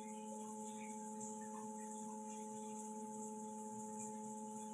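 Steady electrical hum made of several fixed tones over a faint hiss, unchanging throughout.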